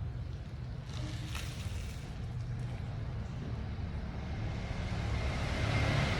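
A motor vehicle's low engine rumble, with a hiss that swells and grows louder in the last couple of seconds.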